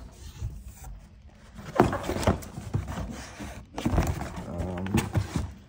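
Cardboard boxes being handled and shifted: irregular scraping and rustling with light knocks, starting about a second and a half in.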